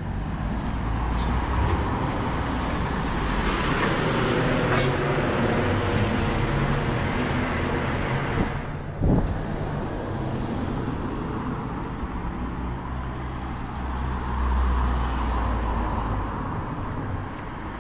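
Road traffic passing along a city street: engines and tyres of cars and lorries going by, loudest a few seconds in, with one sharp knock about nine seconds in.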